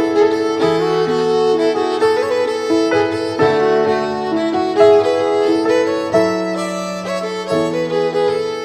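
Background music: a slow melody on violin over sustained chords and a bass line, the notes changing about once a second.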